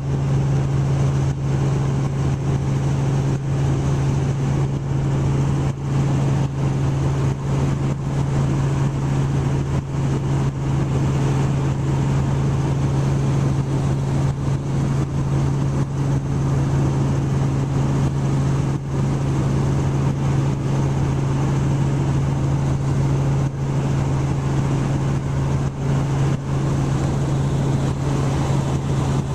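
Helicopter in level flight, heard from inside the cabin: a steady, loud drone of engine and rotors with a strong constant low hum under a wash of noise.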